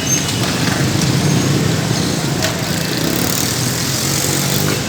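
A steady engine-like drone with a low hum over busy street noise.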